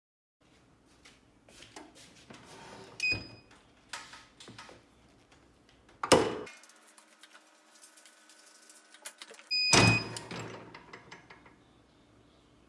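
Clamshell heat press being worked by its handle: a loud metal clunk about six seconds in and another about ten seconds in as the platen is moved, with short electronic beeps just before each. Light handling clicks and rustles come between them.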